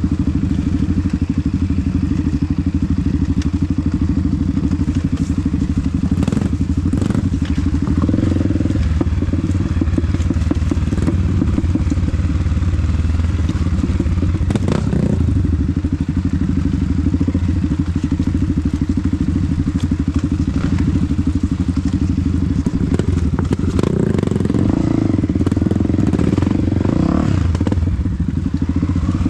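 Off-road trail motorcycle engine running under load, revving harder about a third of the way in and again near the end, with a few knocks and clatters from the bike over rough ground.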